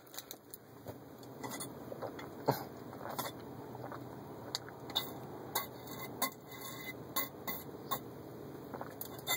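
A bottle being handled and drunk from: scattered small clinks and taps, about a dozen, over a steady low hiss.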